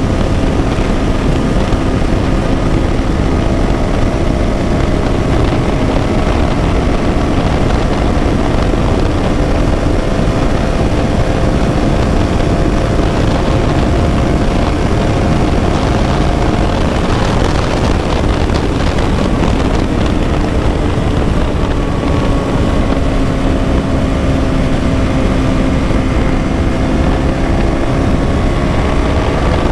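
KTM Duke 200's single-cylinder four-stroke engine running under way at a fairly steady cruise, its pitch sagging and rising slowly, with a rougher, noisier stretch about two thirds of the way through. A rush of low wind noise runs underneath.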